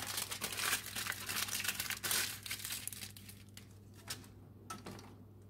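Aluminum foil crumpled and folded tightly around a beet by hand, a dense crinkling that dies away after about two seconds, followed by a few faint clicks.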